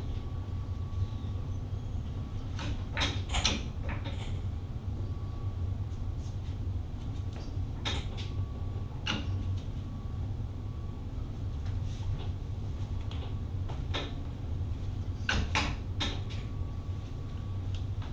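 A steady low hum with irregular sharp clicks and creaks, a few every several seconds, and a faint thin high tone that comes and goes.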